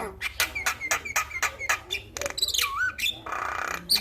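Male Javan myna singing. It gives a rapid run of clicks and short chirps, then a whistle about two and a half seconds in that falls and wavers, and a harsh rasping note near the end.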